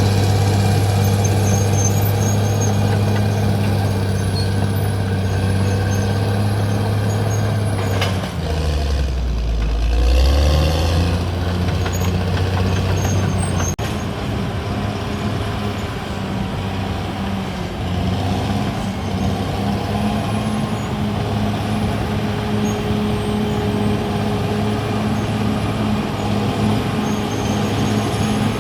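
Caterpillar D6R XL bulldozer's diesel engine running steadily at working revs. About eight seconds in the revs drop sharply, then climb back over a couple of seconds and hold steady again.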